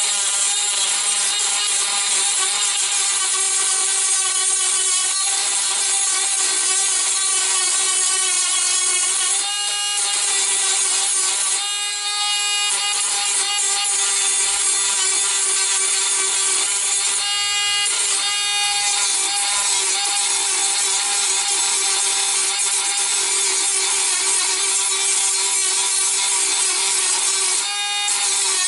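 Dremel rotary tool with a worn grinding stone running steadily, grinding away the battery tray around the MIDI fuses; its whine dips briefly about four times.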